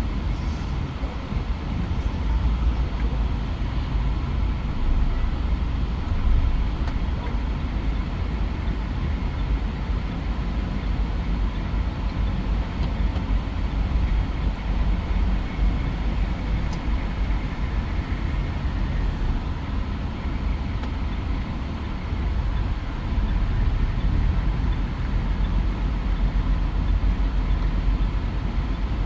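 Mitsubishi Pajero Sport driving, its engine and tyre noise a steady low rumble heard from inside the cabin, growing a little louder near the end.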